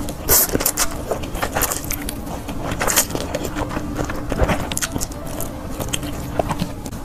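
A person slurping and chewing spicy Chinese-made Buldak-style 'turkey' instant noodles, a run of irregular wet slurps and chewing smacks, over a faint steady hum.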